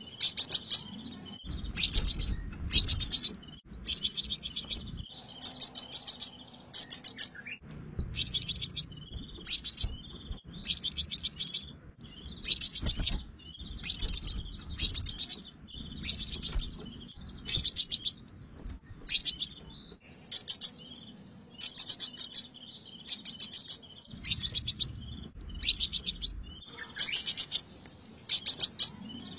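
Sunbird singing: repeated phrases of rapid, high-pitched twittering notes, each about a second long, separated by short pauses.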